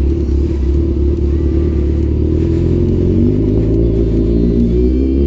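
Kawasaki Ninja 1000's inline-four engine running at low speed, pulling steadily, with a steady low rumble. Music comes in near the end.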